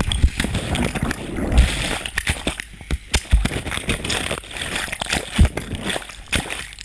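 Water sloshing and splashing around a car that has slid into shallow lake water, with irregular knocks and low thumps throughout.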